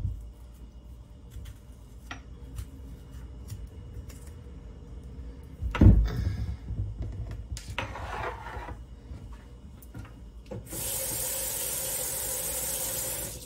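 A kitchen knife cutting and scraping a raw butternut squash on the counter, with a loud knock about six seconds in. Near the end comes a steady rush of running water from a kitchen tap for about three seconds, cut off suddenly.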